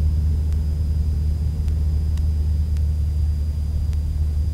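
Cessna 172's piston engine and propeller heard from inside the cockpit in cruise: a steady low drone that holds an even pitch and level.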